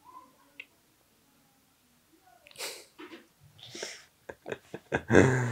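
A person's voice in short breathy bursts: quiet at first, then a sharp breathy exhalation about halfway in, another softer hissy one a second later, and a louder voiced burst near the end.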